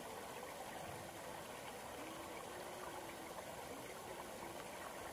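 Faint, steady rush of seawater flowing through a fishpond's sluice gate.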